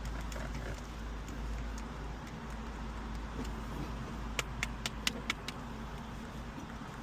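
Steady low outdoor rumble, with a quick run of about six sharp clicks a little over four seconds in.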